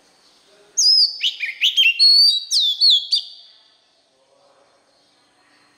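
Oriental magpie-robin singing one rapid phrase of clear whistled notes, many of them quick downward slurs, lasting about two and a half seconds and starting just under a second in.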